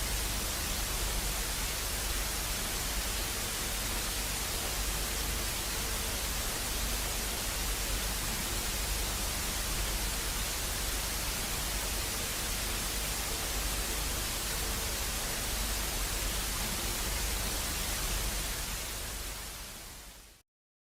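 Steady hiss of static noise, even across the whole range with a low rumble beneath, fading away over the last couple of seconds and then cutting off abruptly to silence.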